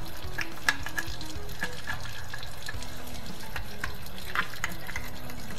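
Water dripping and splashing with many small crackling clicks as the clogged rinse-aid dispenser is rinsed and worked, over faint background music.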